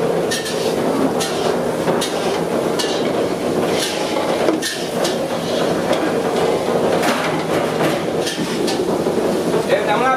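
Irregular sharp metal knocks and clanks of cooking utensils, about one a second, over a steady background of stall noise.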